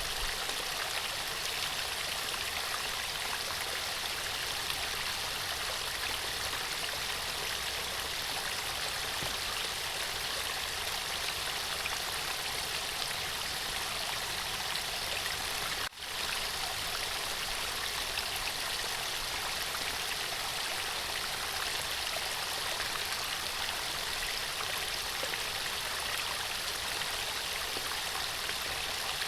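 Running water of a stream, a steady rushing flow, with a momentary drop-out about halfway through.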